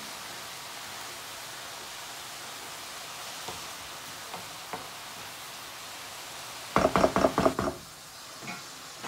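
Shredded cabbage frying in a nonstick pan with a steady low sizzle. A few light taps of a wooden spatula, then about two-thirds of the way in a quick run of about six knocks of the spatula against the pan.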